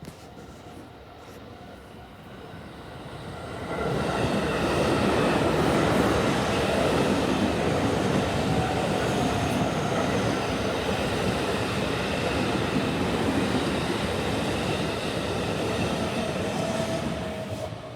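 Electric multiple-unit train of JR West's 223/225-series type passing a level crossing at speed. The rumble of wheels on the rails rises about three to four seconds in, stays loud for about thirteen seconds, and drops away near the end.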